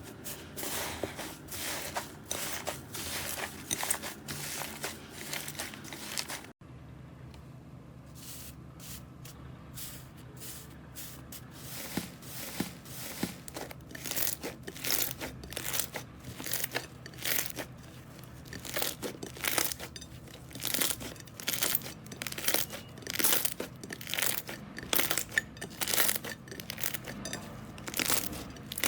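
Slime being squeezed and worked by hand, making dense, rapid crackling and popping clicks. The sound breaks off abruptly about six seconds in, stays quieter for a few seconds, then the crackling builds up again and runs thick to the end.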